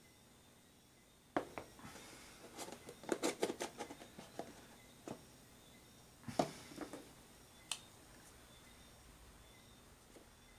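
Plastic food containers and lids being handled and set down on a wooden workbench: a run of light clicks and taps, a louder knock about six seconds in, then a single sharp click.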